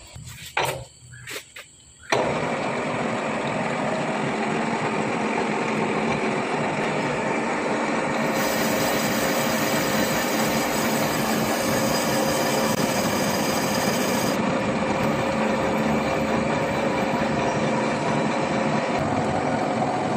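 A few clicks, then a metal lathe starts about two seconds in and runs steadily, turning an air breaker hammer's housing for reboring. A higher hiss joins for about six seconds in the middle.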